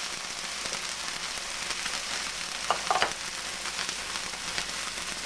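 Chopped onion and ginger garlic paste sizzling in oil on an electric griddle plate, a steady frying hiss. A couple of brief, sharper sounds stand out about three seconds in.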